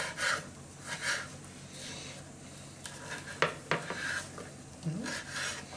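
Kitchen knife cutting sun-dried tomatoes on a wooden cutting board: several short slicing strokes, with two sharp taps of the blade on the board about three and a half seconds in.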